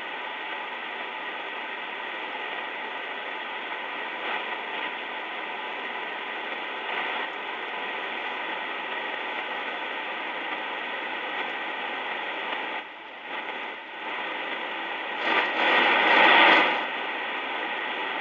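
Motorola-built R-390A tube communications receiver putting out steady hiss and static from its speaker, with no station tuned in. The noise dips briefly about two-thirds of the way through, then swells louder for about a second and a half near the end.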